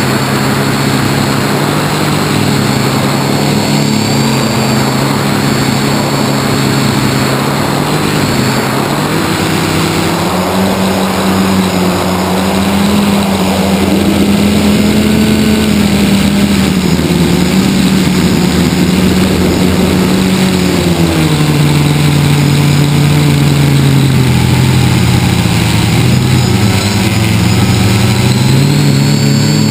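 Electric motors and propellers of a small radio-controlled FPV aircraft, heard through its onboard camera, running continuously with a thin high whine. Their pitch rises and falls as the throttle changes, with wind rushing past the microphone.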